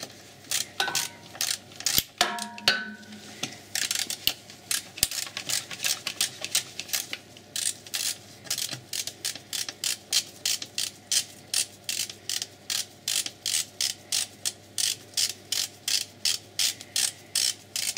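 Hand ratchet clicking in quick, even strokes, about three clicks a second, as it undoes a small 10 mm bolt on an automatic transmission fluid pipe bracket. A few metallic clinks of the tool near the start.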